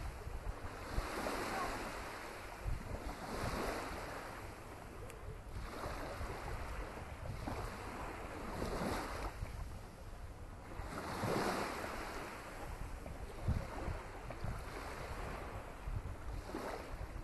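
Small waves washing onto a sandy beach, the hiss swelling and fading every couple of seconds. Wind rumbles on the microphone underneath.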